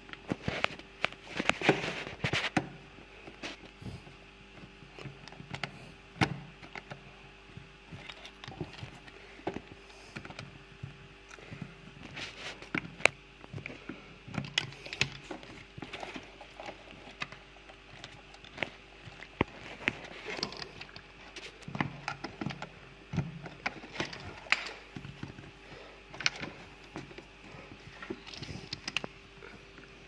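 Irregular clicks, taps and scrapes of fingers and a screwdriver on the plastic parts and wiring connector of a dishwasher's heater pump, working the temperature sensor loose, over a faint steady hum.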